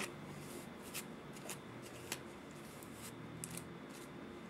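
Faint rustles of synthetic kanekalon braiding hair being brushed out and handled, a handful of short strokes spread through.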